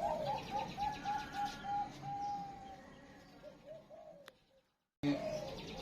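Zebra dove (perkutut) singing: a fast run of short staccato coos, then one longer held note, trailing off in a few lower falling coos. A click a little after four seconds, then the sound drops out briefly and comes back about a second later.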